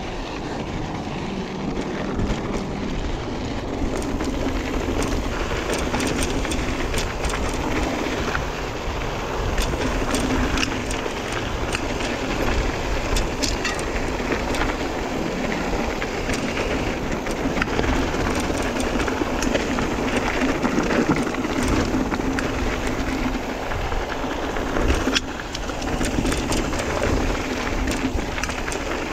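Mountain bike riding over loose gravel: tyres crunching and the bike rattling, with many small clicks and ticks over a steady rushing noise.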